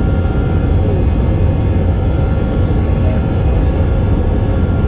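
Airliner jet engines at takeoff thrust early in the takeoff roll, heard from the cabin beside the wing: a loud, steady deep rumble with a few steady engine tones above it as the plane accelerates past about 40 knots.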